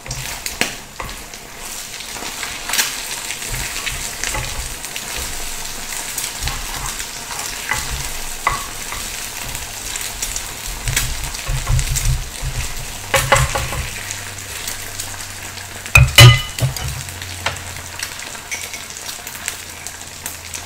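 Eggs sizzling in hot oil in a frying pan while a spatula pushes and scrapes them aside, with scattered clicks of the spatula against the pan. A sharp knock about three-quarters of the way through.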